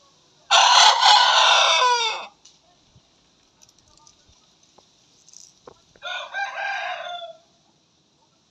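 Young gamefowl cockerels crowing, cockerels that have only just begun to crow. There are two crows: a long loud one near the start that drops in pitch at its end, then a shorter, quieter one a few seconds later.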